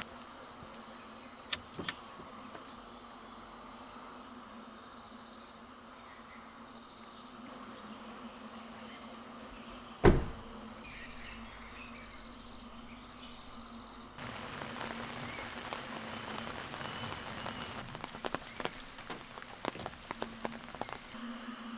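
Rain ambience of falling and dripping rain, with a thin, steady, high insect tone through the first half. A single sharp knock comes about ten seconds in. The dripping turns denser and more crackly in the last third.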